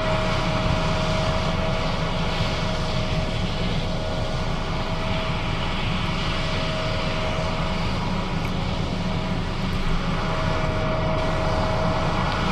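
John Deere S660 combine running steadily while harvesting, a deep drone from its engine and threshing machinery. A steady high whine rides on top; it fades for a few seconds in the middle and then comes back.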